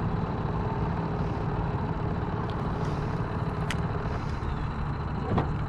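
Boat motor running steadily while trolling, a constant low rumble, with a couple of faint ticks near the end.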